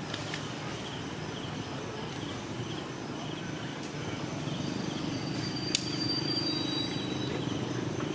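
Outdoor ambience with a steady low rumble and a faint high chirp repeating about every half second. A single sharp click comes about six seconds in, followed by a thin high whistle lasting about two seconds.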